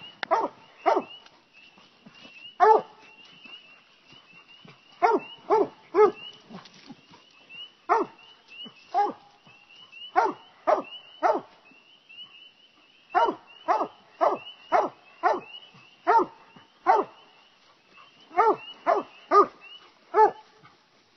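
Coonhounds barking treed at the base of a tree: short, sharp barks, singly or in quick runs of two to four, with brief pauses between. The steady tree bark means the hounds have an animal up the tree.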